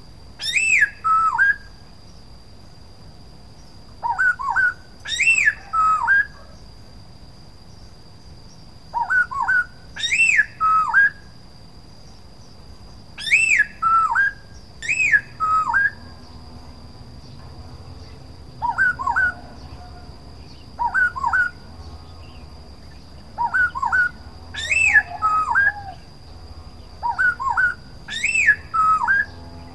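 Black-throated laughingthrush singing: loud, clear whistled phrases of two to four notes, each note arching up and then sliding down, repeated every two or three seconds with short pauses between.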